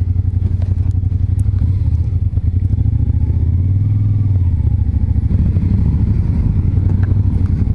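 Suzuki Gladius 400's V-twin engine running at low revs with an even throb as the motorcycle pulls away and rides slowly out onto the street. The revs pick up briefly about four seconds in.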